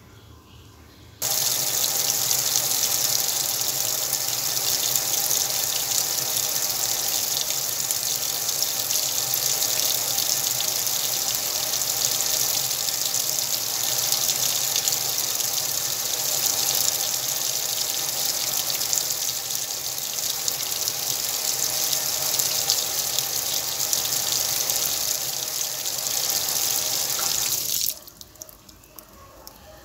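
Whirlpool washing machine filling with water: a steady rush of water pouring into the drum that starts abruptly about a second in and cuts off sharply near the end as the inlet valve closes.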